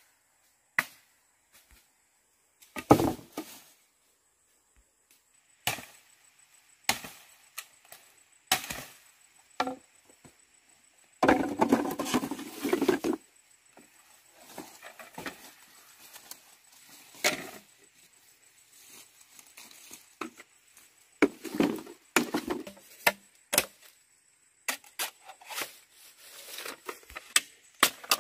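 Irregular sharp knocks and cracks, scattered and uneven, with a denser crackling, rustling stretch about eleven seconds in that lasts about two seconds.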